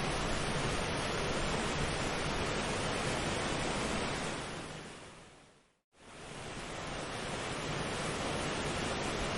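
Steady rushing of ocean surf in a nature-sound recording. It fades out to silence about five seconds in, then fades straight back in, as at a loop or track join.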